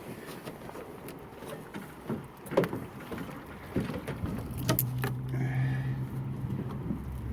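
Scattered knocks and clunks of someone climbing about in a small aluminum rowboat that holds rainwater, the loudest about two and a half seconds in. A steady low hum comes in about halfway through.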